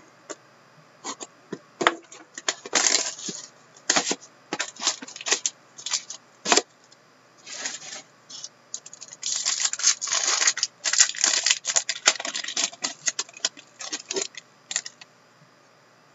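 Plastic shrink-wrap on a sealed box of hockey cards being pierced, torn and pulled off, then the packaging handled: a string of sharp crinkles and crackles, thickest in a dense run about nine to thirteen seconds in.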